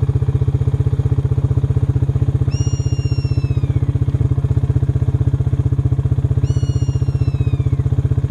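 A steady engine-like drone with a fast, even pulse runs throughout and is the loudest sound. Over it, twice, a bird of prey gives a long, down-slurred scream.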